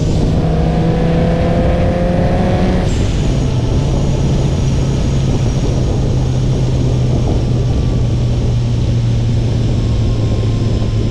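Supercharged Dodge Viper SRT-10 V10 under way, pulling with its pitch rising slightly, then shifting up about three seconds in and running on at lower revs, easing off slowly. Wind and road noise run under it throughout.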